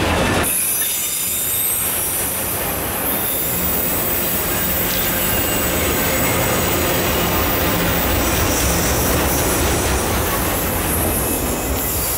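Autorack freight cars rolling past at speed: a steady rumble of steel wheels on rail, with a high-pitched squeal and hiss from the wheels above it.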